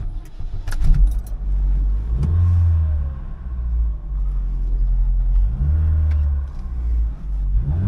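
2005 Chevy Cobalt's four-cylinder engine starting and running, revved up three times with rising pitch. It has a newly fitted throttle body and its trouble codes have just been cleared.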